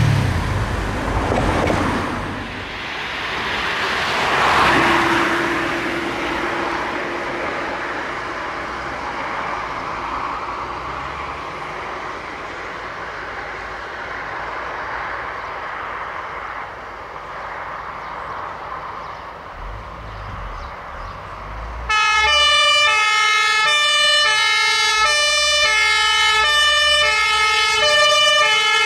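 Road noise of passing traffic, then about 22 s in a fire engine's German two-tone emergency horn (Martinhorn) starts suddenly, alternating between a low and a high note.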